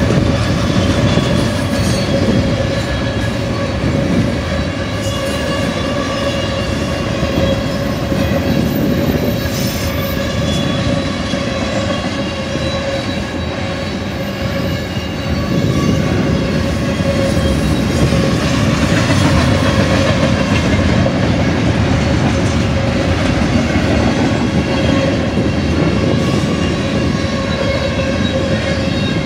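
Double-stack container well cars of a long freight train rolling past close by: a steady rumble of steel wheels on rail with clickety-clack, and a steady high tone ringing above it.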